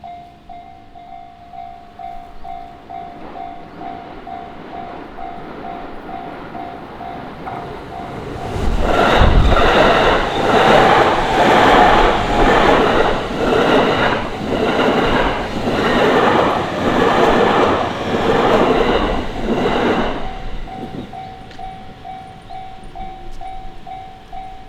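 Japanese level-crossing warning bell ringing about twice a second. About a third of the way in, a JR Hachiko Line diesel railcar passes over the crossing with a loud, rhythmic clatter of wheels over rail joints that drowns out the bell for about eleven seconds. After it passes, the bell is heard again.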